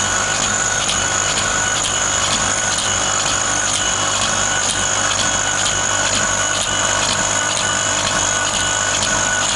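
Laser engraving machine running as its head scans back and forth over black granite: a steady high whine and low hum from the machine's motors, with a regular ticking.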